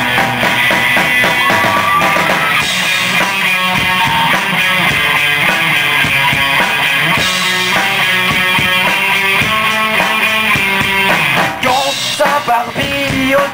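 Live rock band playing an instrumental passage between verses: electric guitar, electric bass and drum kit together, the playing breaking into a few short stops near the end.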